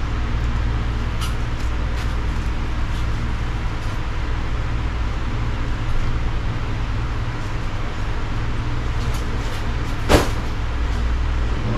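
Steady low rumble of background noise, with a few faint clicks and one sharp click about ten seconds in.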